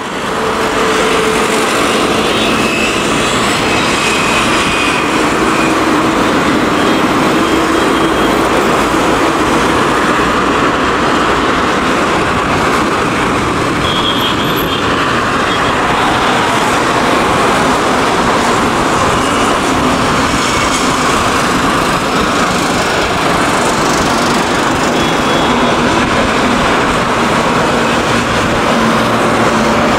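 Twin turbofan engines of an Airbus A320-family airliner climbing out after takeoff: a loud, steady jet roar that swells up over the first second and then holds.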